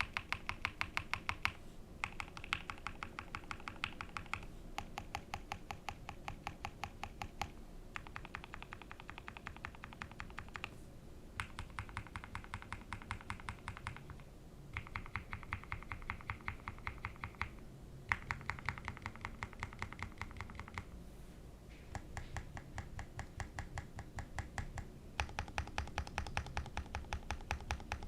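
Typing on a Neo Ergo mechanical keyboard with Everglide Aquaking V3 switches on a carbon-fibre plate and Osume Tsukimi keycaps. Fast runs of keystrokes come in bursts of a few seconds with short pauses between them. The switches are quieter than normal switches but not fully silent.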